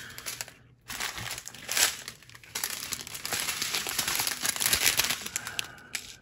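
Small clear plastic zip bags of square resin diamond-painting drills crinkling as they are handled and moved about, with a short pause just under a second in.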